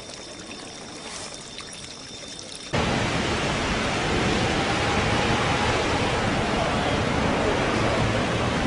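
Water welling up through cracks in the ground, a faint flowing trickle. About three seconds in the sound cuts abruptly to a much louder, steady rushing noise.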